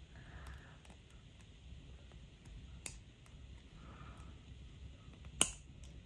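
Small clicks of chain-nose pliers closing on thin wire, pressing sharp wire ends flat on a wire bird nest pendant: a light click about three seconds in and a sharper, louder one near the end, with faint handling in between.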